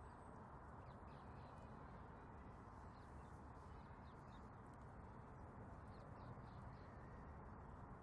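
Near silence: a faint, steady outdoor hiss with a few faint, short bird chirps.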